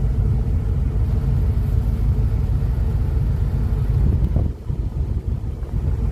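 Truck engine running at low speed while reversing with a loaded trailer, heard from inside the cab as a steady low rumble that dips briefly about four and a half seconds in.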